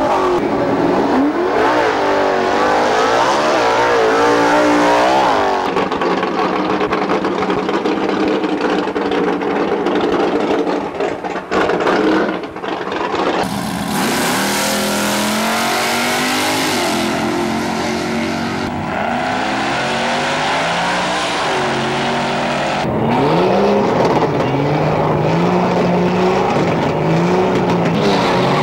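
Drag racing cars' engines revving hard and accelerating down the strip one after another, the pitch climbing and dropping again with each gear change. A stretch of loud hiss runs through the middle.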